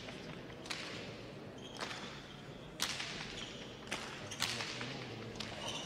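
Hard pelota struck by bare hands and rebounding off the fronton's front wall and floor during a rally. The sharp cracks come about once a second, each ringing briefly in the hall.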